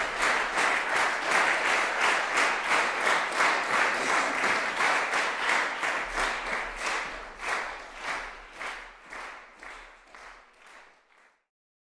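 Concert audience applauding, the clapping pulsing in a regular beat, then thinning out and dying away about eleven seconds in.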